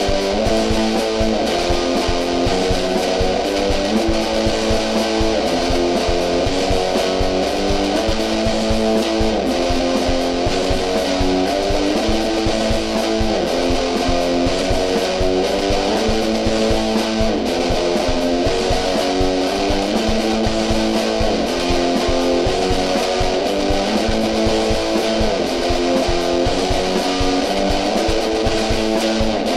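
Guitar-driven band music playing continuously, with changing guitar notes over a steady beat.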